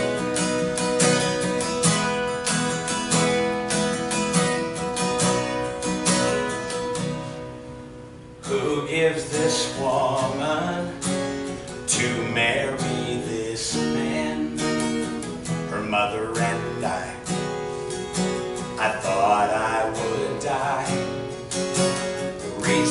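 Solo acoustic guitar strummed in a slow song, thinning out to a brief lull about eight seconds in, then picking up again with a man's voice singing over it.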